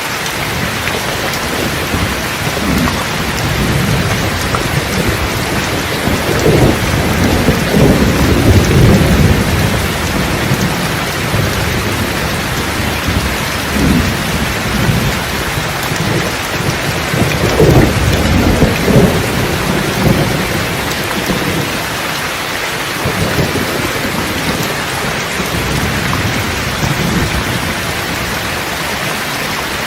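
Steady rain with rolling thunder. The two loudest rumbles come about six to ten seconds in and around eighteen to twenty seconds in, with fainter ones between and after.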